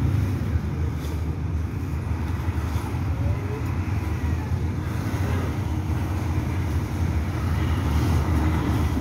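Road traffic: cars and a motorcycle passing on the street, a steady low rumble.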